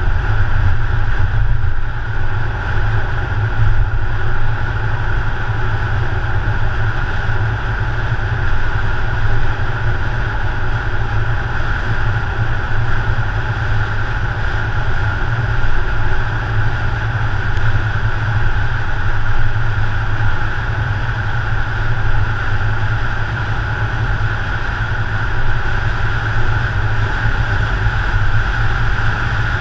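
Steady rumble of a car driving at road speed on asphalt: wind and tyre noise with the engine underneath, picked up by a camera mounted on the car.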